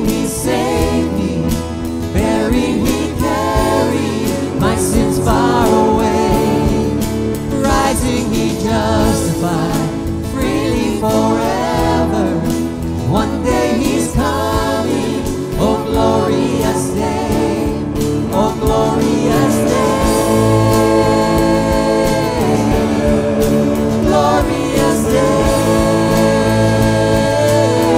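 Contemporary Christian worship song sung by a man and two women into microphones, with instrumental backing.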